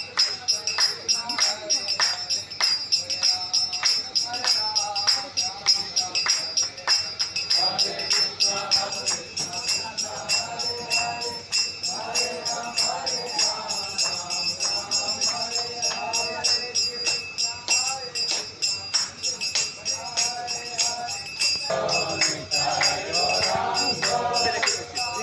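Devotional kirtan: a group of voices chanting to a steady beat of jingling hand percussion, with a constant high metallic ringing like small hand cymbals. The singing swells fuller near the end.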